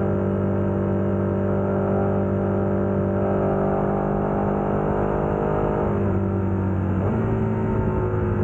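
KTM 1290 Super Adventure's V-twin engine through a Wings aftermarket exhaust, pulling steadily on the road. Its note climbs slowly, then drops back, with a break about seven seconds in like a gear change.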